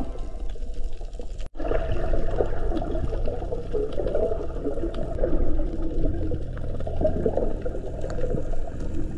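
Underwater water noise and bubbling picked up by a submerged camera, with a low rumble underneath; a sudden short dropout about a second and a half in.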